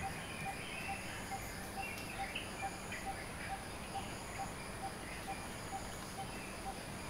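Tropical birdsong at dawn: scattered chirps and twitters, with one low note repeated evenly about twice a second throughout, over a steady high-pitched buzz.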